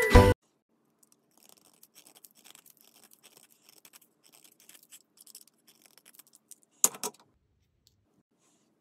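Craft knife blade scraping the soft core of a Derwent pastel pencil to a point: a long run of faint, quick scratching strokes, then two sharp clicks near the end.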